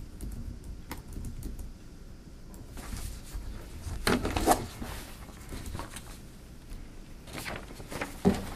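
Scattered light clicks and rustling, with a louder cluster of clicks about four seconds in and again shortly before the end.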